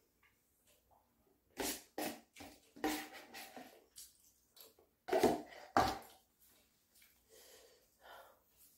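Eating and handling sounds: a fork scraping and tapping in a paper cup of instant noodles, heard as a string of short scrapes and clicks, the loudest about five seconds in.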